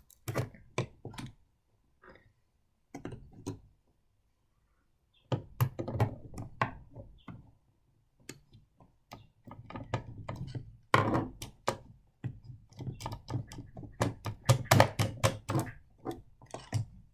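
Irregular clicks, taps and knocks of small tools and parts on a model train carriage as a bolt holding its bogie is worked loose, with a brief pause a few seconds in and busier clattering in the second half.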